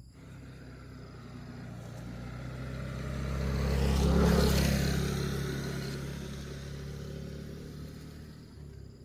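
A motor vehicle drives past, its steady engine sound growing to a peak about four seconds in and then fading away.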